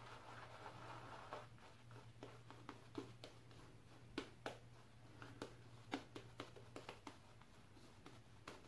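Natural-hair shaving brush working soap into a lather on a bearded face: faint, irregular soft wet clicks and swishes.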